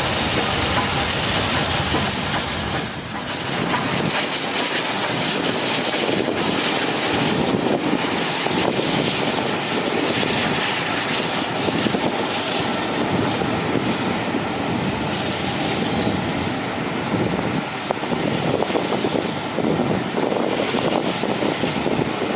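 A steam-hauled passenger train passing close at speed, its coaches' wheels clattering over the rail joints in a steady, loud rush. A high sound falls in pitch about two seconds in.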